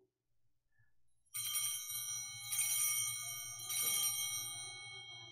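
Altar bells rung in three shakes about a second apart, their many high ringing tones fading slowly after each. The ringing marks the elevation of the consecrated host.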